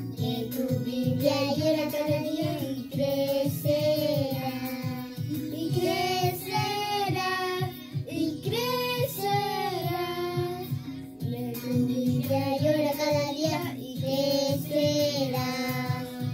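Two children, a girl and a boy, singing a praise song together over instrumental accompaniment with a steady beat.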